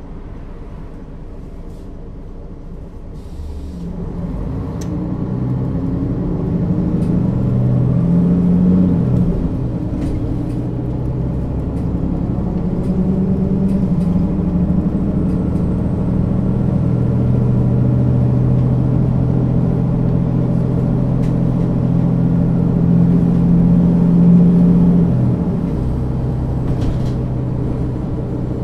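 Mercedes-Benz O 530 G Citaro articulated bus engine and Voith automatic gearbox, first running low and steady, then pulling away about four seconds in with the engine note rising. There is a gear change near nine seconds, then a long climb under load, and the note drops again near the end.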